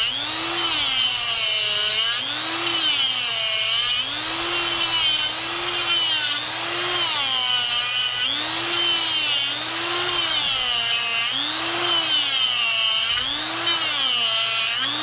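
Harbor Freight Hercules 1/4-inch electric die grinder cutting wood with a carving bit. The motor's whine dips in pitch and recovers every second or two as it bogs down a little under each pass.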